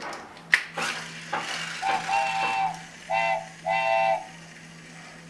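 Plastic toy clicking and rattling, then three short pitched beeps, the middle one the shortest.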